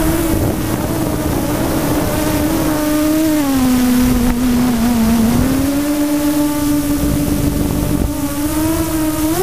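Electric motor and propeller of an FPV radio-controlled aircraft, a steady whine that dips lower in pitch around the middle and rises again near the end as the throttle changes, with wind rush on the onboard microphone.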